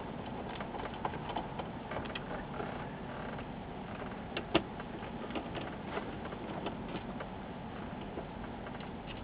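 Small clicks and taps of a hand screwdriver and screws on a sheet-metal LCD monitor chassis as the screws are driven back in, with one sharper click about halfway through, over steady room noise.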